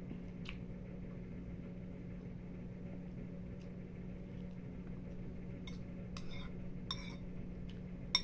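A metal spoon clinking and scraping against a ceramic bowl a few times over the last few seconds, with one sharp clink near the end, over a steady low hum.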